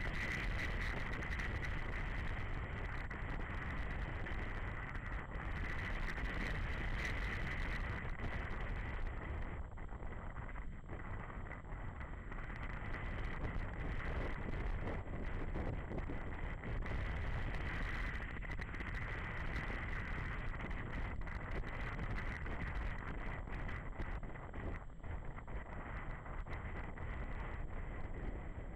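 Riding noise on a BMW G 650 GS Sertão: wind rushing over the bike-mounted camera's microphone, mixed with the bike's single-cylinder engine running. It goes on steadily the whole time.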